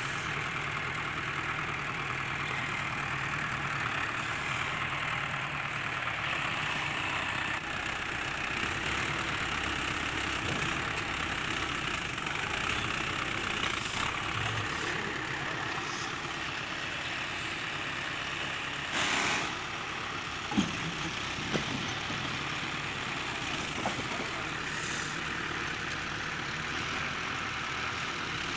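Mahindra Arjun 555 tractor's diesel engine running steadily under load as it strains to pull a log-loaded trolley. About two-thirds of the way through there is a brief loud rush of noise, followed by a few sharp knocks.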